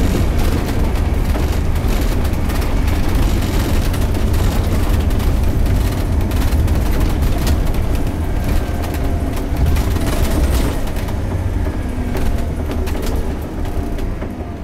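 Scania K230UB bus's nine-litre five-cylinder Scania DC9 engine and ZF Ecomat automatic gearbox heard from inside the saloon on the move: a deep steady drone with a faint rising whine, and many sharp clicks and rattles from the bodywork and fittings. It gets quieter near the end.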